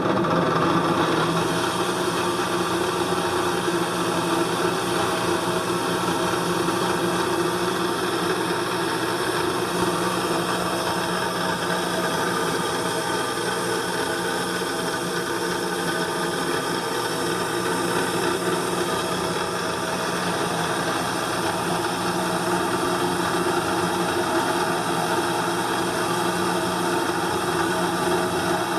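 8-inch Palmgren double-end bench grinder running steadily at speed, a constant motor hum and whine that does not change.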